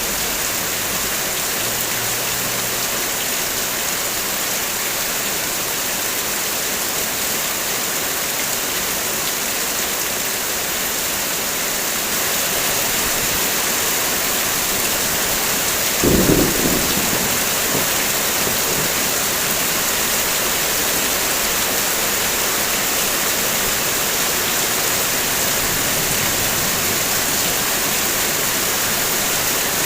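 Heavy rain falling steadily, picking up a little about a third of the way in, with one short low rumble of thunder about halfway through.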